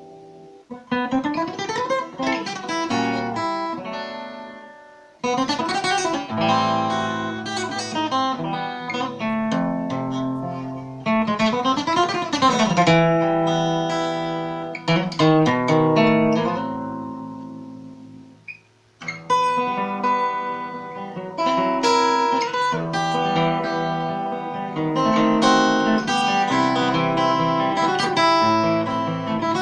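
Solo acoustic guitar playing a composed piece in phrases of fast rising and falling runs and arpeggios. The sound dies away twice, about five seconds in and about two-thirds of the way through, before the next phrase begins.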